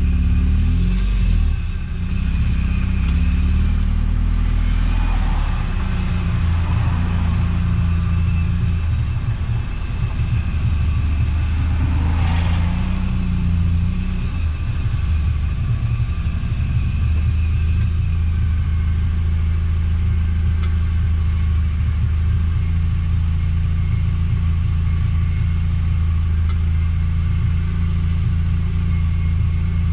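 Eunos Roadster (Mazda MX-5) being driven: its inline-four engine runs with a steady low drone under road noise. The engine pitch shifts up and down a little during roughly the first half, then holds steady.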